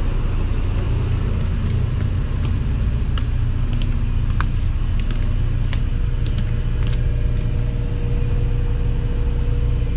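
Steady low rumble and hum of a tanker ship's engine-room machinery, with a few faint clicks scattered through it.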